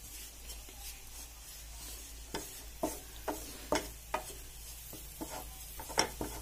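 Wooden spatula stirring and scraping clumps of flour and butter around a nonstick frying pan as a roux fries, over a faint sizzle. The short scrapes and taps come irregularly from about two seconds in.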